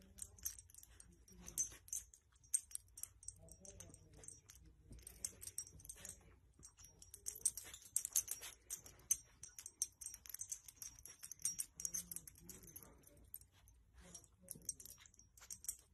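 Faint rustling of a soft blanket as a dog noses and tugs it up over a sleeping baby: many small, quick, high crackles and clicks with no steady sound under them.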